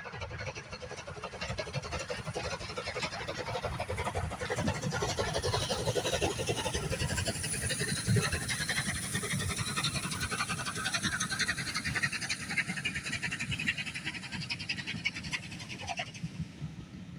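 A steam locomotive passing at speed with its train, rapid exhaust beats and a clatter of wheels growing louder as it comes by, then fading as the coaches go past.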